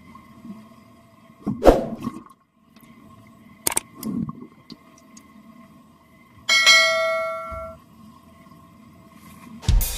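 Muffled underwater water sounds over a faint steady hum, with a loud water whoosh about one and a half seconds in and a sharp click near the four-second mark. About six and a half seconds in, a bell chime rings and fades out over about a second: the notification ding of a subscribe-button animation.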